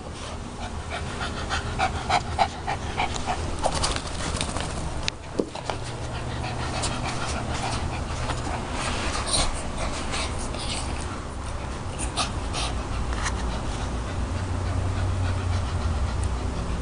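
Small dog panting, with scratchy scuffing of fur against carpet as she rolls and rubs her back on the floor.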